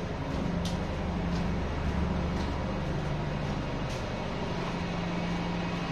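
Steady low engine hum over a constant rushing noise, with a few faint high ticks.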